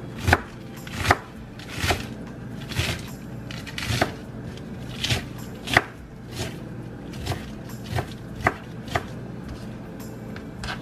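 Kitchen knife chopping shredded lettuce, carrot and red cabbage on a wooden cutting board: slow, uneven chops about once a second, each a sharp knock of the blade on the board.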